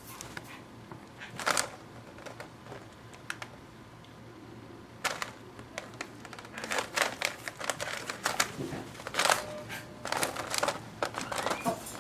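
Squirrel gnawing on a pumpkin: runs of quick, scratchy crunching clicks in bursts, one loud burst about a second and a half in and busier stretches from about five seconds on.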